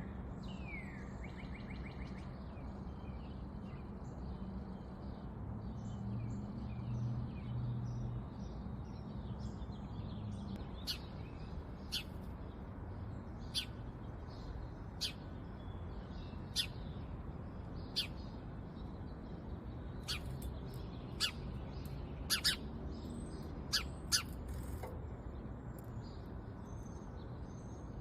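Small wild birds at a seed feeder giving short, sharp single chirps, one every second or so through the middle stretch, over a steady low background rumble.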